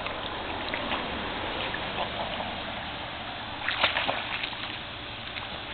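Pool water splashing and sloshing, with a short cluster of louder splashes about four seconds in.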